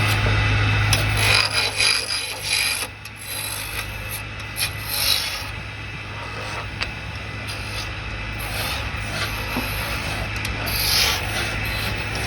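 Wood being scraped and rasped by a tool in irregular strokes, over a steady low hum.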